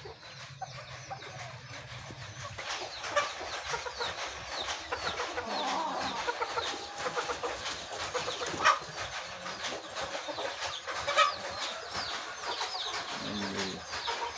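Aseel chickens clucking and peeping: many short, falling calls overlapping, busier after the first couple of seconds, with a few sharp clicks about three, nine and eleven seconds in.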